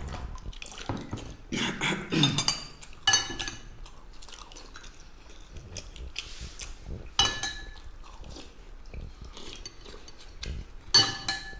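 Metal spoons clinking and scraping against ceramic soup bowls in hurried eating, several clinks ringing briefly and the loudest near the end, with slurping and chewing between them.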